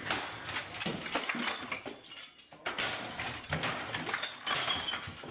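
A rapid, irregular series of light clicks and clinks, with a brief lull a little past two seconds in.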